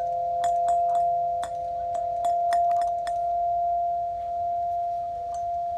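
Background music: two steady held tones, with short, bell-like struck notes sounding over them.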